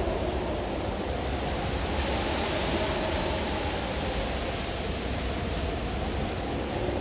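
Howling wind of a blizzard ambience: a steady rush with low moaning tones that slowly rise and fall, and a hissing gust that swells about two to four seconds in.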